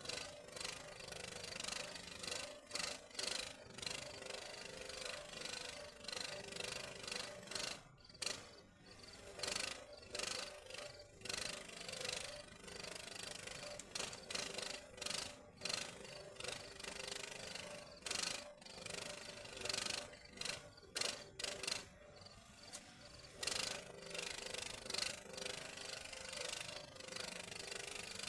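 Electric arc welding on rebar: the arc crackles and sizzles unevenly over a faint steady hum, breaking off briefly twice.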